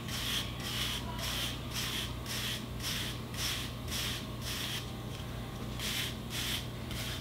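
A 3WP wave brush's bristles swishing through short, waved hair in quick, even strokes, about two a second, over a faint low hum.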